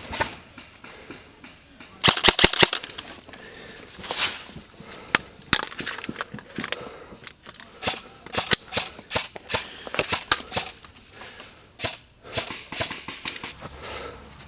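Airsoft guns firing: scattered single shots and a short rapid burst about two seconds in, more shots following at irregular intervals.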